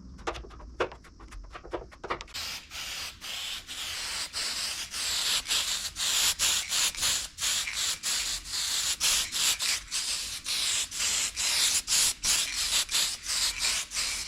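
Sanding body filler on a car bonnet: sandpaper rubbed back and forth in steady hissy strokes, about two to three a second. The strokes are lighter and sparse at first and become steady and stronger about two seconds in.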